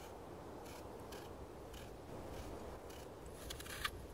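Knife peeling a green apple: faint short slicing strokes through the skin about every half second, coming faster near the end.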